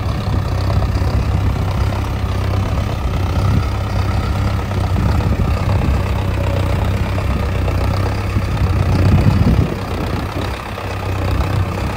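Mahindra Arjun Novo 605 DI tractor's diesel engine running steadily under load while pulling a disc harrow through dry soil. It swells louder about nine seconds in, then drops briefly.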